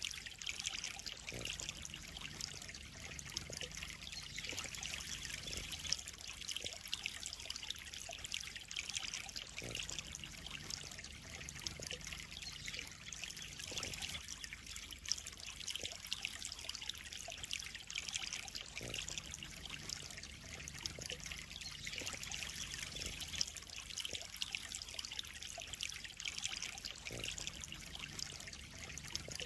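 Water trickling and splashing steadily into a koi pond, with a few faint short knocks here and there.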